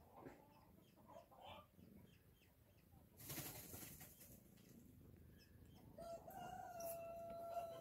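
Near silence: faint room tone with a brief rustle about three seconds in and a faint steady tone in the last couple of seconds.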